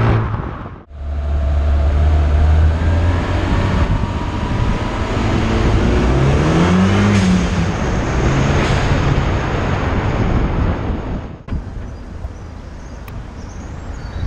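Modified Renault Mégane 225's exhaust, recorded close to the tailpipe while driving, its engine note rising and falling with the revs. The sound breaks off abruptly twice, and after the second break, near the end, it is quieter and steadier.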